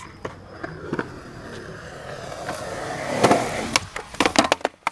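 Skateboard wheels rolling on concrete, growing louder, then a sharp pop a little over three seconds in. A quick run of hard clacks follows as the board strikes and clatters.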